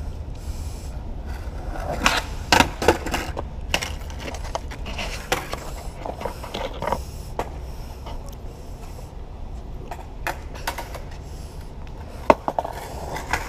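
Skateboard clattering and slapping on asphalt as a skater bails, with a cluster of sharp knocks from the board and wheels about two to three seconds in. Scattered single knocks follow over a steady low rumble.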